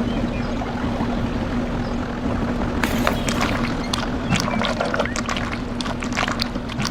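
A vehicle engine running at a steady hum, driving through water, with a run of sharp splashes joining in about three seconds in.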